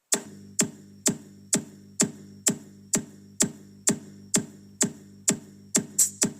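Electronic dance music intro: a sharp drum-machine hit about twice a second over a low, sustained synth chord. Near the end the hits come twice as fast, building into the track.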